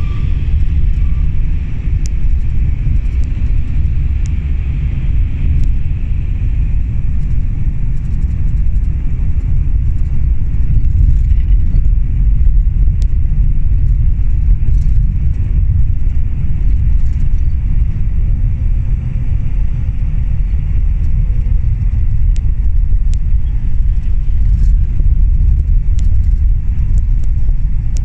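Steady low rumble of a moving coach's engine and tyres on the road, heard from inside the passenger cabin, with occasional faint clicks.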